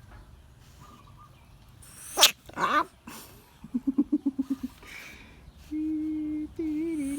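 Bullfrog calling: a loud, high scream about two seconds in, a quick run of about ten short croaks around four seconds, then a long, steady call from about six seconds on.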